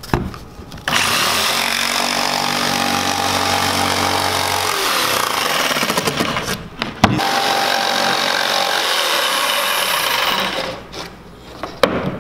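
Jigsaw cutting through an OSB panel along a marked line. It runs steadily in two long stretches with a brief pause about six seconds in, then stops about ten and a half seconds in.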